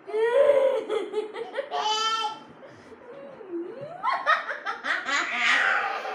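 Hearty, high-pitched laughing in two bouts of about two seconds each, with a short quieter stretch between them.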